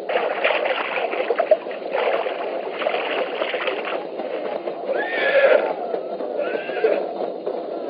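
Water splashing and sloshing as men scoop and drink from a pool, with a horse neighing about five seconds in and again briefly near seven seconds.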